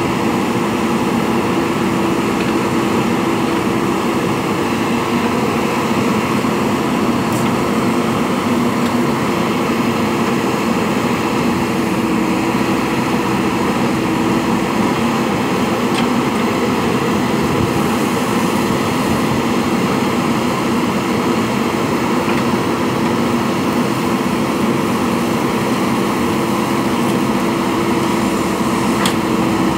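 Diesel engine of a JCB backhoe loader running at a steady speed with a constant hum.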